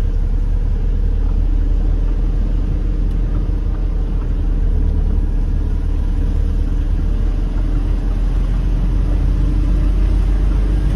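Diesel engine of a Mercedes Vario truck-based motorhome running steadily under way at low speed, a constant low drone with road noise.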